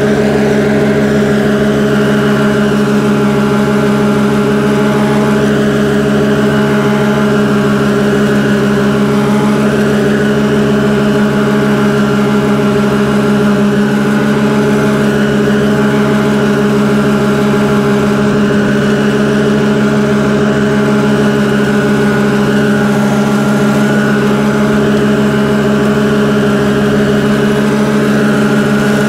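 Engine of a front-deck ride-on mower running at a steady speed while mowing grass, an even drone with no change in pitch.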